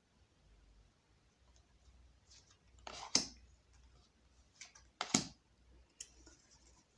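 Fortune-telling cards being dealt onto a wooden table: a few short clicks and light slaps of card on wood with brief rustling, the loudest about three and five seconds in.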